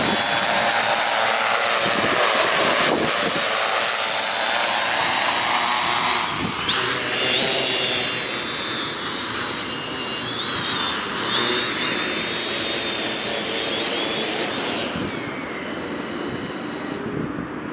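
Tarot T810 hexacopter's six brushless motors and 15-inch carbon propellers whirring in low flight, with a high motor whine that wavers in pitch. About fifteen seconds in, as it sets down, the sound drops and falls in pitch.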